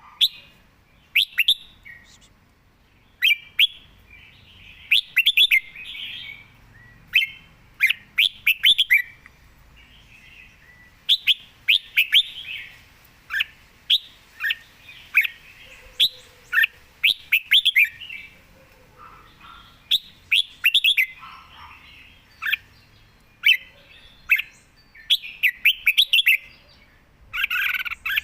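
Red-whiskered bulbul singing short, quick phrases of bright chirping notes, one phrase every second or two with brief pauses between.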